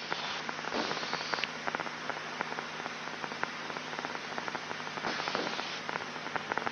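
Crackling, hissing static over the intercom in the cockpit of a twin-turboprop Turbo Commander as it taxis, with a steady low engine hum underneath. The hiss swells briefly twice.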